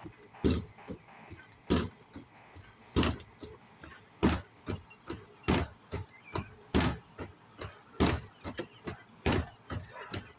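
Punches landing on a freestanding punching bag: a strong hit about every 1.2 seconds, with lighter hits in between.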